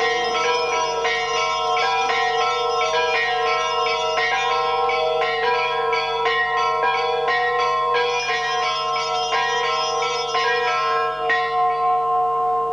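Bells rung continuously for the elevation of the host at the consecration of the Mass: a rapid, unbroken run of strokes over several sustained ringing tones. The strokes stop about eleven seconds in and the ringing dies away.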